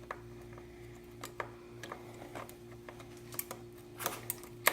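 Scattered small clicks and taps of a motorcycle brake lever and its parts being handled and worked into place against the master cylinder piston, with a sharper click near the end, over a steady low hum.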